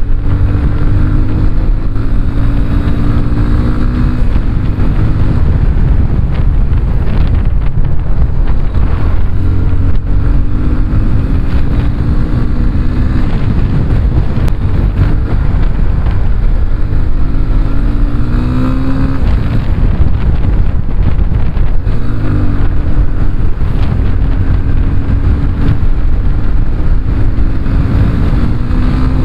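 Yamaha FZ25's 249 cc single-cylinder engine running through its stock exhaust at road speed, its note rising and falling several times as the throttle changes. Heavy wind noise on the microphone.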